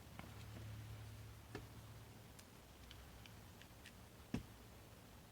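Faint, sparse clicks and small taps of hands handling slime-making supplies, with one sharper click about four seconds in, over a faint low hum.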